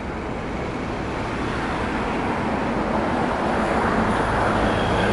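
Street traffic noise: a steady rush of passing vehicles that slowly grows louder.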